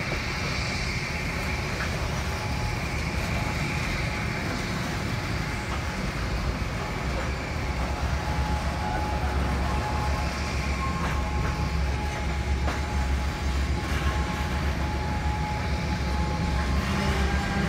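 Covered hopper cars rolling slowly along the track: a steady low rumble of steel wheels on rail, with a faint thin wheel squeal coming in now and then from about halfway through and a few light clicks.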